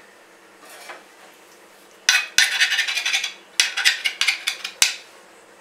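A flat metal blade scraping and clinking on a steel plate as it shapes the edges of a sheet of hot sesame chikki. One scrape comes about two seconds in, then a run of short scrapes and clicks with a sharp tick near the end.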